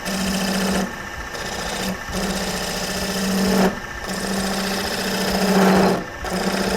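Wood lathe running with a turning gouge cutting the spinning lignum vitae, in passes of one to two seconds, each ending in a brief dip before the next cut.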